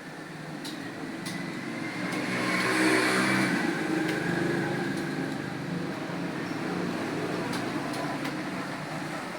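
Computer keyboard keys clicking now and then as someone types, under a passing motor vehicle that swells to its loudest about three seconds in and then slowly fades.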